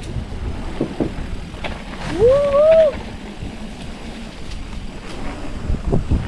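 Mountain bike rolling down a rocky downhill trail: a steady low rumble of tyres and wind on the microphone, with a few knocks as the bike goes over rocks. About two seconds in comes a short rising 'woo' whoop from a rider.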